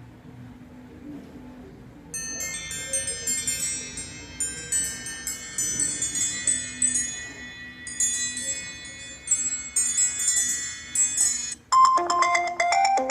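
iPhone 6s ringtone previews playing from the phone's speaker: a bright, chiming ringtone starts about two seconds in and cuts off near the end, when a different, lower and louder mallet-like ringtone starts.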